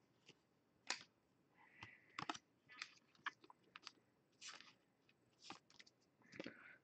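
Faint, irregular clicks and light taps, about a dozen spread over several seconds, with near silence between them.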